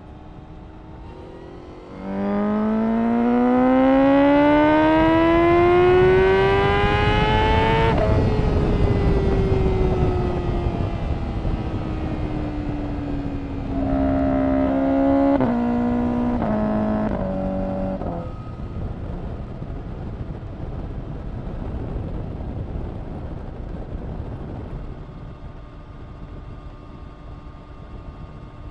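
Honda CBR1000RR-R SP Fireblade's inline-four through an Akrapovic exhaust, pulling hard in one gear with a steadily climbing pitch for about six seconds. About eight seconds in the throttle shuts and the revs fall away. Then the pitch drops in several short steps before the engine runs on more quietly.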